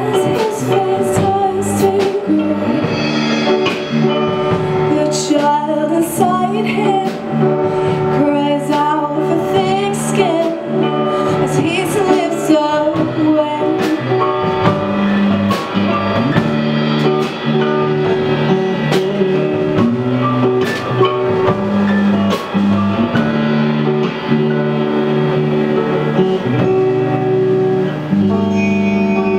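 A live rock band playing: electric guitars, a drum kit with regular cymbal hits and an upright piano, with the lead singer's voice wavering over the sustained chords in the first half.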